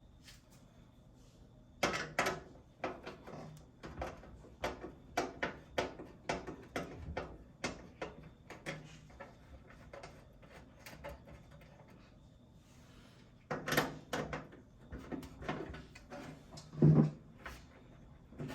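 Irregular clicks, taps and knocks of computer parts, cables and case pieces being handled and fitted during a PC build. There are louder clusters about two seconds in and again past the middle, and a single heavier thump near the end.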